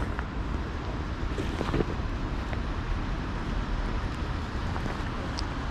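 Steady low rumble of wind on the microphone over the hum of city traffic, with a few faint light ticks.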